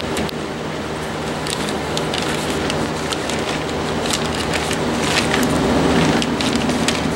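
Thin plastic sheeting crinkling and rustling as it is handled and gathered around a drape, in many short crackles, over a steady low hum.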